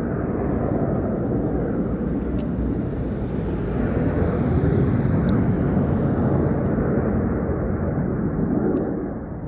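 Steady outdoor rumble of distant engine noise with no clear pitch, swelling about halfway through and easing near the end, with a few faint clicks.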